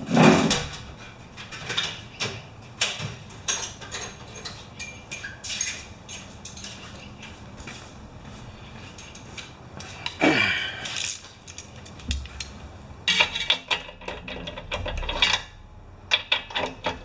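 Metal hand tools clinking and clicking against a lawn mower engine while its spark plug is worked loose, with a fast run of clicks about 13 seconds in.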